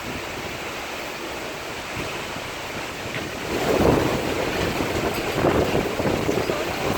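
Strong storm wind rushing and buffeting the microphone, growing into louder gusts about halfway through.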